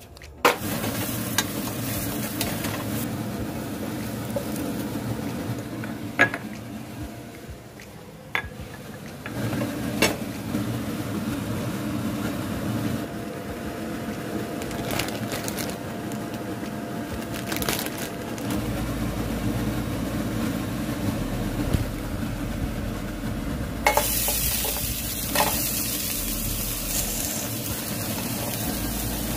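Kitchen sounds of a bag of frozen vegetables being handled, with a few sharp knocks against the pot. About 24 seconds in, frozen broccoli, cauliflower and carrots start sizzling in a hot pot, a steady hiss that lasts to the end.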